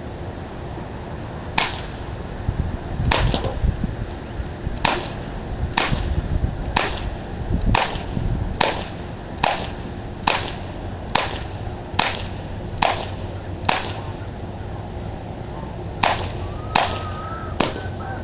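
Powerline CO2 BB pistol fired semi-automatically: about sixteen sharp pops, roughly one a second, with a brief pause about two-thirds of the way through.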